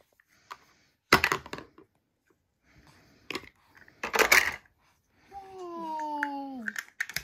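Hard plastic toy-kitchen pieces clattering: toy vegetables and utensils knocking against a toy pot, in a few sharp knocks, the loudest about four seconds in. Near the end there is a short vocal sound that falls slightly in pitch.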